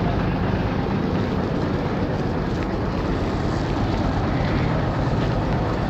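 Hino 10-wheeler dump truck's diesel engine idling steadily.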